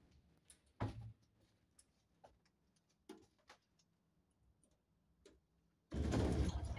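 Soviet MZS passenger lift (1965, modernised 1998): scattered light clicks from the car and door gear, with one dull thump just under a second in as the car settles at the floor. About six seconds in a loud, rough mechanical noise starts and keeps going.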